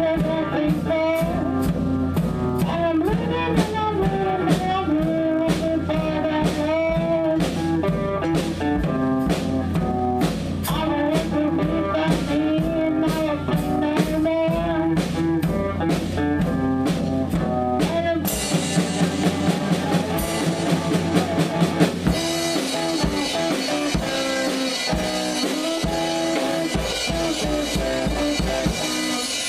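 Live band music: electric guitar and a drum kit, with a girl's voice singing over them. About eighteen seconds in, the singing gives way to a drum fill of quickening, louder hits, and then guitar and drums play on.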